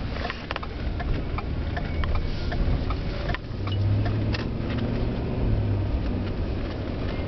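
Car driving, heard from inside the cabin: steady low engine and road rumble with small knocks and rattles, and the engine hum growing stronger for about two seconds past the middle.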